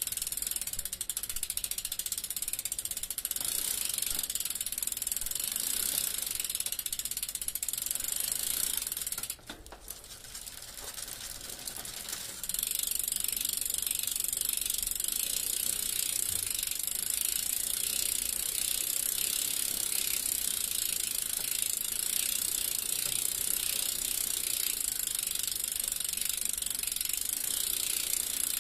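Bicycle freewheel ticking fast as the wheel spins without pedalling, its ratchet pawls clicking continuously. The ticking drops quieter about nine seconds in and comes back louder a few seconds later.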